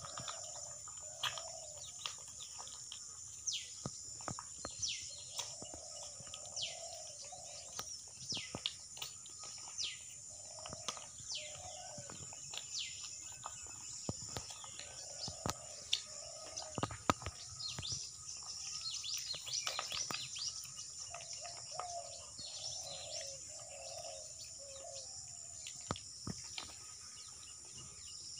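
Small birds chirping in many short, quick downward-sweeping calls over a steady high-pitched hum, with scattered sharp clicks and knocks, the loudest about halfway through.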